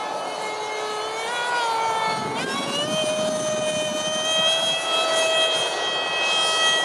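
Whine of an RC jet's six-blade electric ducted fan (WeMoTec Midi) in flight. The pitch sags a little, then climbs quickly about two and a half seconds in and holds higher, as the throttle is opened.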